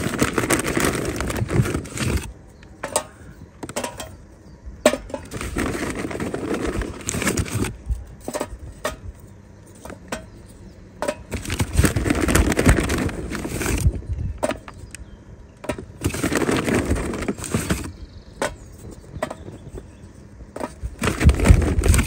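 Charcoal-grill kindling fire catching, with crackles and sharp pops. Loud rushing noise comes and goes in gusts every few seconds.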